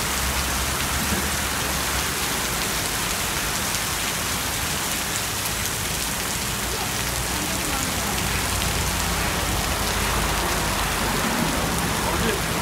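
Heavy rain pouring onto a street and pavement, a steady, dense hiss with no let-up.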